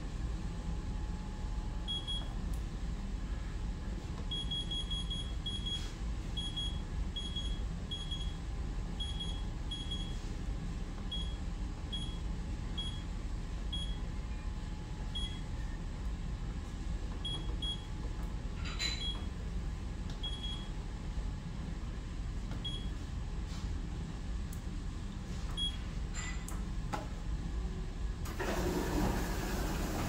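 Dishwasher control panel giving a long series of short, high electronic beeps, many in quick pairs, as its buttons are pressed to reset the C8 error code, over a steady low hum. A short rushing hiss comes near the end.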